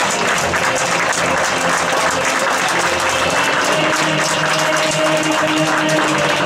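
Spectators applauding as the teams walk out, a steady patter of many hands clapping, with music playing underneath.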